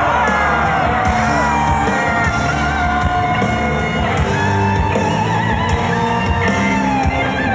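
Live rock band playing: drums and bass under long held notes that slide up and down in pitch.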